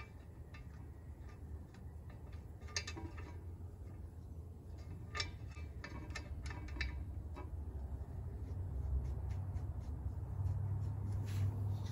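Light metallic clicks and ticks of ARP 12-point flywheel bolts being threaded by hand through a steel flexplate into the crankshaft, scattered irregularly, over a low steady hum.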